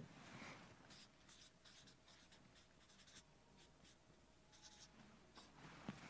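Faint felt-tip marker strokes on flip-chart paper: a run of short, quick scratches as words are written.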